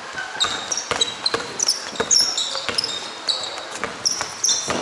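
Sneakers squeaking on a basketball court floor many times in short, high squeaks, mixed with the thuds of a basketball bouncing.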